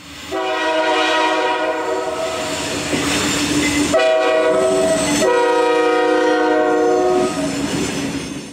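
Locomotive air horn of Pan Am Railways 7552 blowing a chord of several notes in a long sequence of blasts, broken briefly about four and five seconds in. Near the end it drops to a single lower note and fades out.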